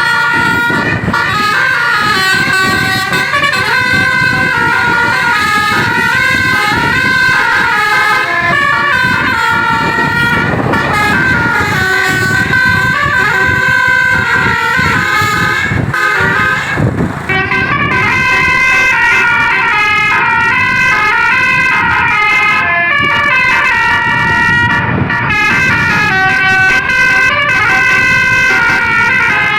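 Indonesian bus's basuri telolet horn, a multi-tone musical horn, playing a continuous tune of loud, bright notes stepping up and down, with a short break about seventeen seconds in.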